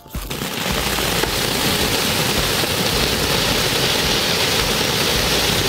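Ground fountain firework (anar) spraying a tall cone of sparks, making a steady, even rushing hiss.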